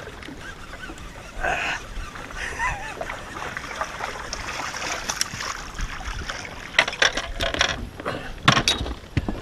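A hooked musky thrashing and splashing at the surface beside a fishing boat, with a cluster of sharp knocks in the second half and a brief voice near the start.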